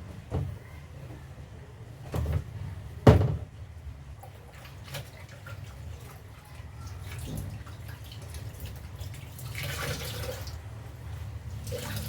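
Knocks and clatters from items being handled while a fridge is cleaned, the loudest about three seconds in. Near the end come short splashes of water.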